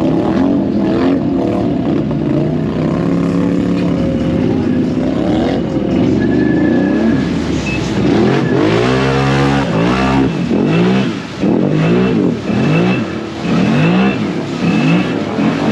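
ATV engine running, then revved hard: one long climb and drop in pitch about halfway through, followed by short revs about once a second.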